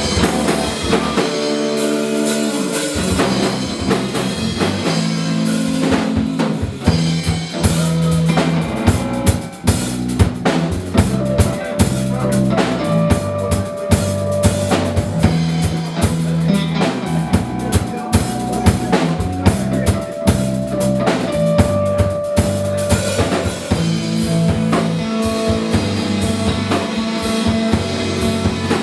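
Instrumental music with a drum kit keeping a steady beat under bass notes and sustained melody lines, without singing.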